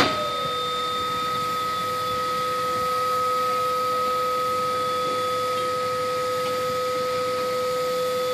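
A sharp click at the start, then steam locomotive No. 18, a 2-8-0, standing with steam hissing steadily and a steady whistling whine in two pitches.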